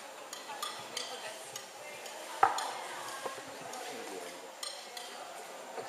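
Faint background noise of a large hall with scattered small clicks and clinks, and one sharp knock about two and a half seconds in.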